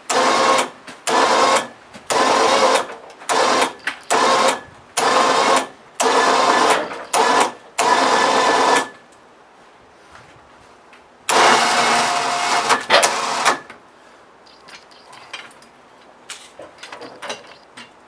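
A 4,500 lb electric winch with synthetic line pulling a large fir log onto a sawmill, its motor whining in about ten short on-off bursts, then running once for about two seconds.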